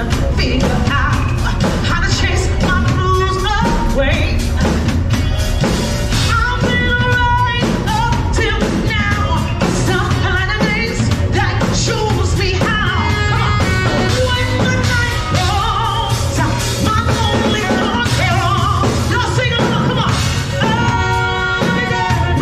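Live street band playing a song: a woman sings into an amplified microphone over a drum kit and a steady low bass line, with no breaks.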